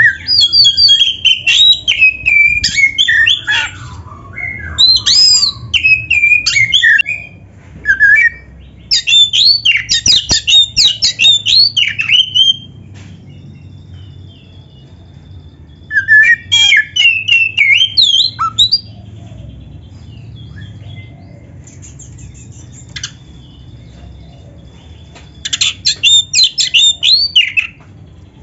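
Oriental magpie-robin (kacer) singing in loud bursts of rapid, varied whistled phrases with quick rising and falling notes. The bursts are separated by pauses of a few seconds, with a longer gap past the middle.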